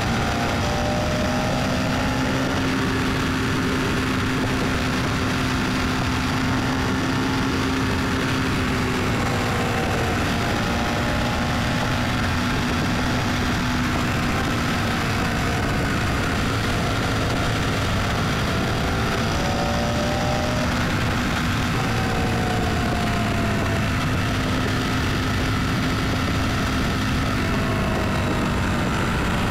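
Car driving: steady road noise with an engine hum whose pitch drifts slowly up and down.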